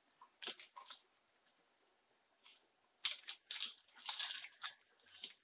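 Wooden spatula stirring thick lentil curry in a nonstick pan, scraping and clicking against the pan: a few short scrapes about half a second in, then a quick run of them from about three seconds on.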